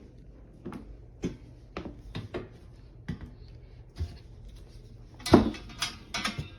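Scattered light knocks and clatters of things being handled, about a dozen short taps, with the loudest cluster a little after five seconds in.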